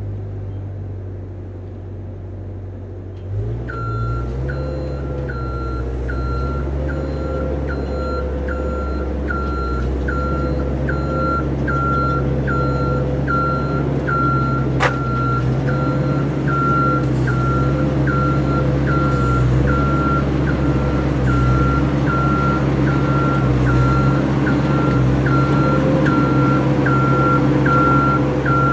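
A work vehicle's engine running with its back-up alarm beeping steadily at about one beep a second; the alarm starts a few seconds in as the engine note steps up. A single sharp click about halfway through.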